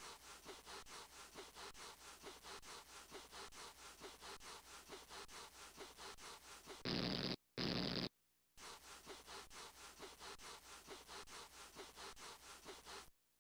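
Cartoon sound effects: quick, scratchy rubbing at about four strokes a second, a dog's feet shuffling to build up a static charge, broken about seven seconds in by two short, louder electric zaps of a static shock.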